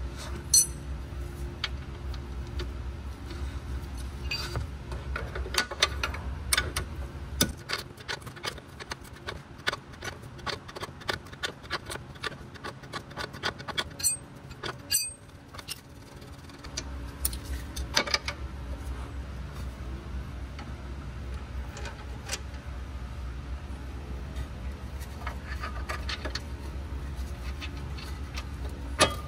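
Ratchet clicking and metal tools clinking while the front control arm is unbolted from the steering knuckle with a T40 socket and a 21 mm wrench. A steady low hum runs underneath and drops out for several seconds in the middle.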